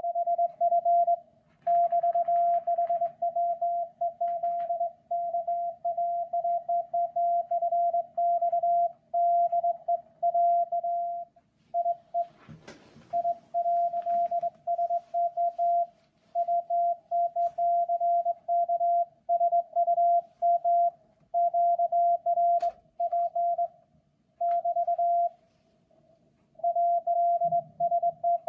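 Morse code (CW) on the 40 m band from a Yaesu FTDX10 transceiver, heard through a Yaesu SP-30 external speaker. A steady mid-pitched tone keys on and off in dits and dahs over a faint low hum. A short burst of noise breaks in about twelve seconds in.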